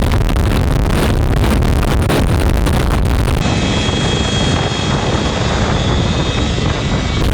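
Turbine helicopter running close by, with heavy rotor wash buffeting the microphone. A steady high whine comes in about three and a half seconds in and drops out shortly before the end.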